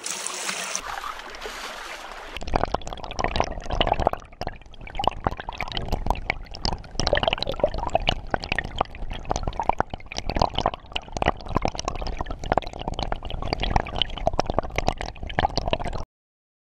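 Water poured over gravel in a classifier sieve. About two seconds in, this gives way to water rushing through a sluice box, with gravel and stones clicking and rattling along it, heard from a camera inside the sluice. The sound cuts off suddenly near the end.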